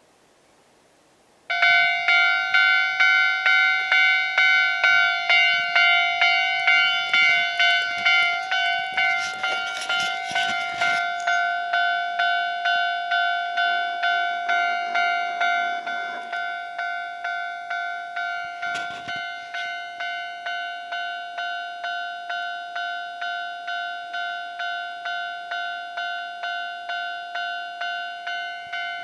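Japanese level-crossing warning bell starting up about a second and a half in, then ringing on in quick even strokes, about two to three a second. It drops to a lower volume about sixteen seconds in.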